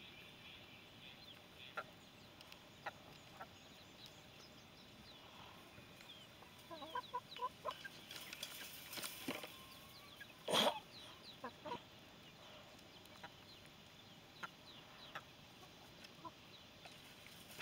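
Hens clucking softly now and then, with a short run of quick clucks a little before the middle. There is one sharp knock a little past the middle.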